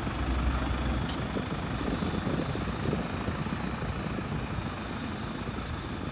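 Tractor engine running as the tractor drives away, its low rumble dropping off about a second in and the sound slowly fading.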